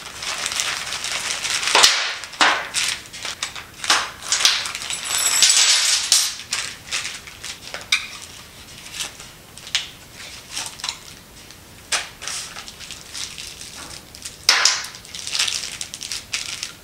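Plastic parts bags crinkling and rustling as they are torn open and emptied, heavy for the first several seconds, then broken up by sharp clicks and clacks of small metal parts set down on a tabletop.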